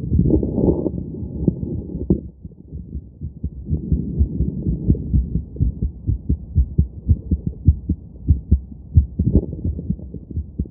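A woman's heartbeat heard through a stethoscope on her chest, beating quickly and regularly after exercise. A rushing noise lies over the beats in the first two seconds and again briefly near the end.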